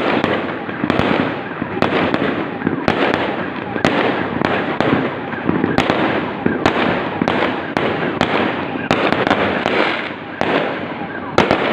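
Fireworks going off continuously: rapid bangs about every half second over dense crackling.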